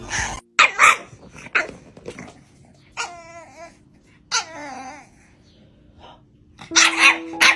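French bulldog puppy vocalising in protest: a few short sharp barks, then two longer, wavering, howl-like grumbles in the middle, then a burst of louder barks near the end.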